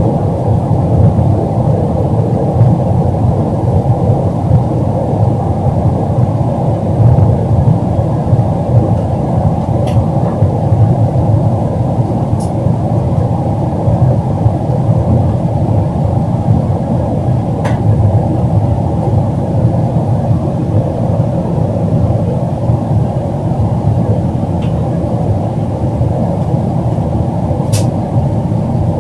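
Steady, deep cabin noise of a jet airliner climbing after takeoff: engines and rushing air heard from inside the cabin, with a few faint clicks.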